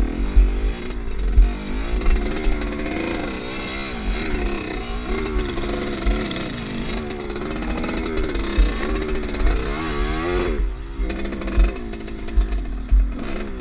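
Off-road motorcycle engine revving up and down as the throttle is worked, with a brief drop in revs near the end before it picks up again. Heavy low thumping runs underneath.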